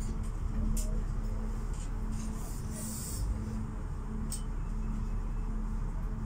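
Running noise of a regional train heard from inside the passenger car as it arrives at its terminus: a steady low rumble of wheels on track with a hum that comes and goes. A few brief clicks and a short hiss about two and a half seconds in.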